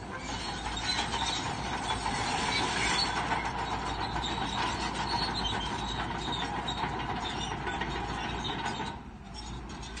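Crawler bulldozer working, its engine running and its steel tracks clanking, with a brief drop in level about nine seconds in.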